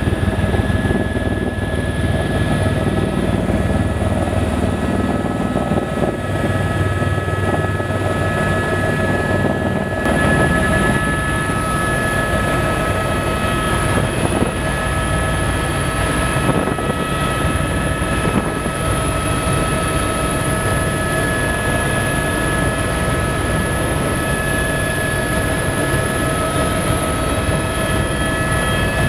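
Helicopter in flight heard from inside the cabin: a steady high turbine whine over a constant low rotor rumble.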